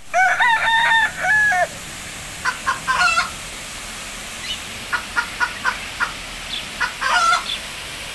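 A rooster crows once, a long call of about a second and a half. Short clucking calls follow in three bursts, over the steady rush of a waterfall.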